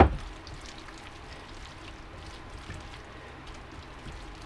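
Faint, soft wet squishing of hands kneading raw beef strips coated in egg and cornstarch in a glass bowl, over a steady low background hum, with a soft thump at the very start.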